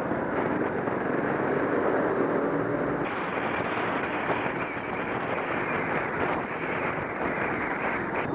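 Trail motorcycle's single-cylinder engine running at riding speed under heavy wind rush on the microphone, the engine note standing out most clearly about one to three seconds in.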